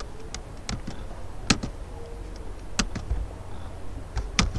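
Light, sharp clicks at a computer, about nine of them at irregular intervals, the loudest about a second and a half in, near three seconds and just before the end: the game being stepped through move by move. A low steady hum lies underneath.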